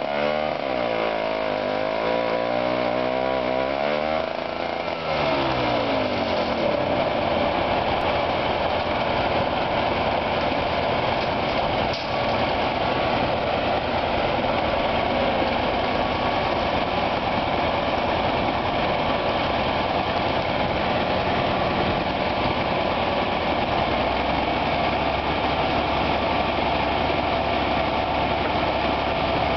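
Old Soviet EO-4121 crawler excavator's diesel engine, just started, its speed swinging up and down unevenly for the first few seconds before it settles into a steady run. In the last few seconds a heavier low rumble joins it as the machine begins working its boom.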